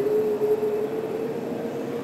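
Steady mechanical drone of an aquarium hall's machinery, with a single hum that edges slightly up in pitch.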